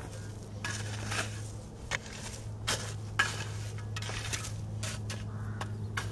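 Steel shovel blade scraping and pushing dry, stony soil back into a planting hole, a short gritty scrape every second or so. A steady low hum runs underneath.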